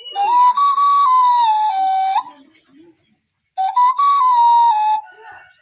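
A flute-like whistle playing two short phrases of held notes that move in steps, the first about two seconds long and the second shorter, with a pause of about a second between them.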